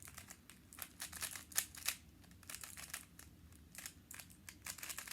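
Rubik's cube being turned fast by hand: a quick, irregular run of plastic clicks and clacks as the layers rotate, starting suddenly after a moment of quiet.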